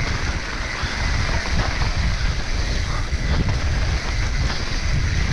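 Wind rushing over the microphone with the rumble and rattle of a mountain bike descending a clay trail at speed.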